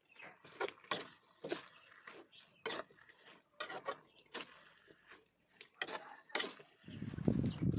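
Metal spatula scraping and knocking against a wok as pork and glass noodles are stirred, in irregular strokes about once or twice a second. Near the end a louder, lower sound comes in.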